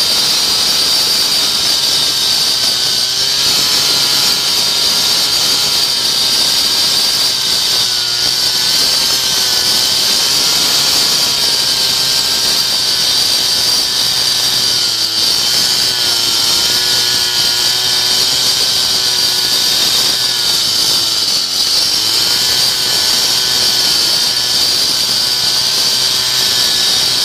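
Cut-off saw cutting crack control joints into concrete: a loud, steady, high-pitched blade whine over the running motor, its pitch wavering slightly as it works through the cut.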